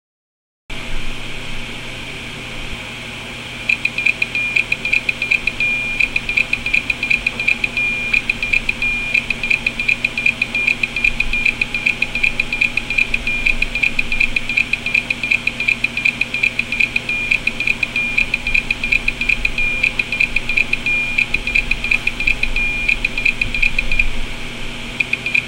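Hard disk drive running with its cover off: the spindle spins the platters with a steady whine, and from about three seconds in the head actuator arm seeks back and forth, making a fast, harsh stream of clicks, several a second. The constant clicking is the heads moving as the drive reads and writes nonstop under a disk defragmenter; horrendous noise.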